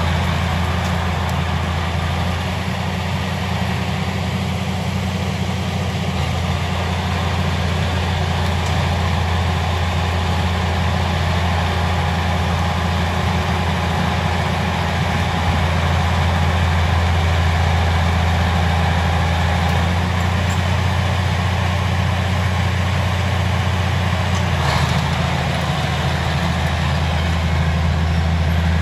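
Old bulldozer's diesel engine running steadily with a deep, even drone.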